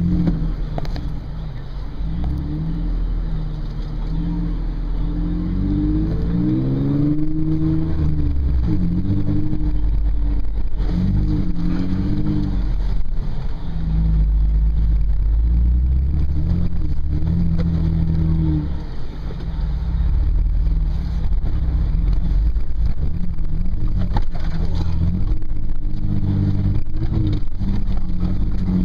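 Toyota FJ Cruiser's 4.0-litre V6 heard from inside the cabin, its pitch rising and falling again and again as the driver works the throttle over rough off-road trail. Scattered knocks and rattles come from the truck jolting over the terrain.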